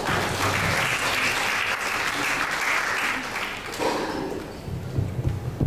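Audience applauding, dying away after about three and a half seconds.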